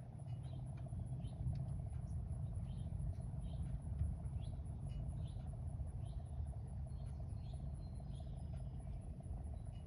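Small songbirds chirping, with short chirps about every half second, over a steady high-pitched pulsing trill and a steady low rumble.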